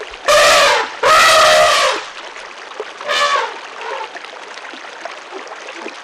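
Elephants trumpeting: two long, loud calls in quick succession in the first two seconds, then a short one near the middle. A steady trickle of running water sounds underneath.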